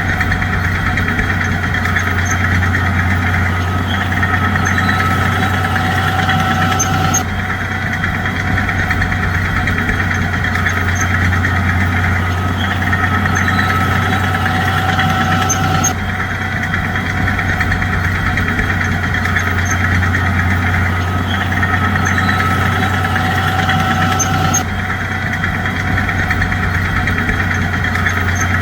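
Heavy diesel engine of a bulldozer running steadily with a deep hum. The same stretch of engine sound starts over abruptly about every nine seconds.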